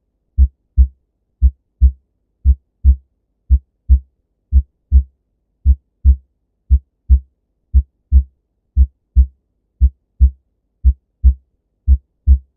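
Normal human heart sounds: a steady lub-dub, the first and second heart sounds, with about one beat a second (roughly 57 a minute) and silence between beats.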